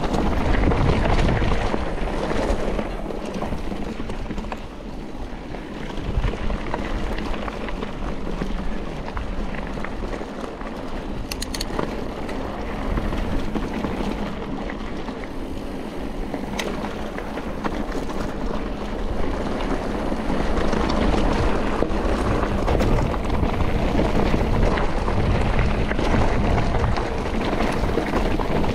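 Mountain bike riding a dirt trail: wind rushing over the microphone over a steady rumble from the tyres and bike, rising and falling in loudness, with a couple of sharp clicks in the middle.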